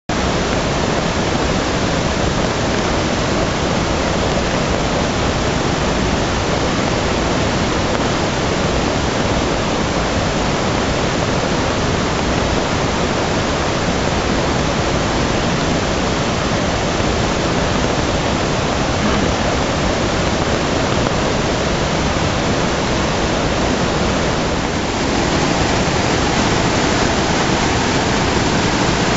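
Steady, loud rush of fast-flowing floodwater, with a slight change in the sound just before the end.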